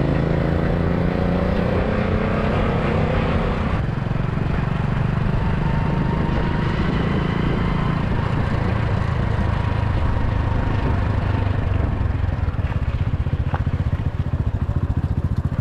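Hero Honda CD100SS's single-cylinder four-stroke engine running steadily while the motorcycle is ridden, with road and wind noise.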